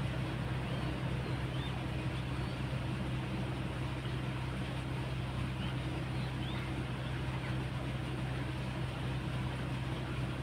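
Steady drone of an engine running at a constant speed, holding one low pitch without rising or falling.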